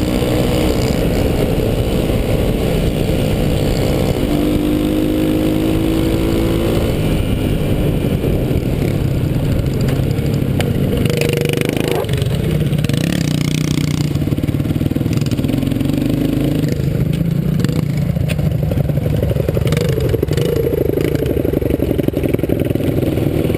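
Dirt bike engine running as it is ridden, the revs rising and falling, with a brief knock about halfway through as it bumps into the back of the bike in front.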